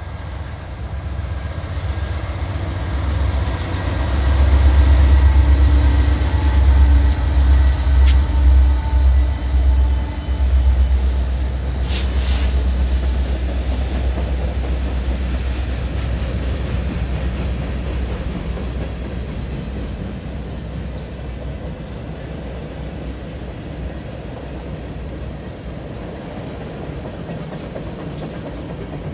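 Freight train passing close by. The three diesel locomotives go by with a loud, pulsing engine rumble over the first ten seconds or so, with a sharp clank about 8 seconds in and another about 12 seconds in. After that comes the steady rolling and clatter of tank cars and flatcars, easing a little toward the end.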